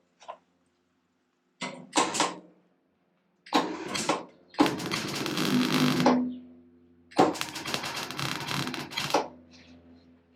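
MIG welder joining sheet-steel repair pieces: two short tack bursts, then two longer welding runs of about a second and a half and two seconds. A low steady hum comes in partway through.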